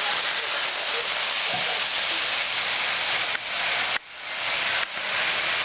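Lionel Pennsylvania Flyer electric toy train running on its track: a steady hissing whir that dips briefly about three and a half seconds in, drops out sharply at about four seconds, then builds back up.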